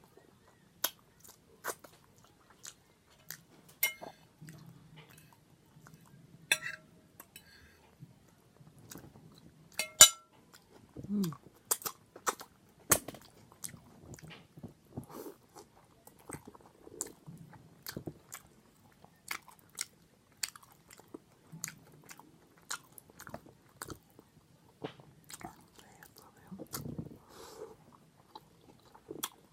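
Close-miked chewing and lip-smacking of a breakfast of eggs, turkey sausage and toast, with crunching bites and a steady stream of sharp mouth clicks. A few louder clicks ring briefly, the loudest about ten seconds in.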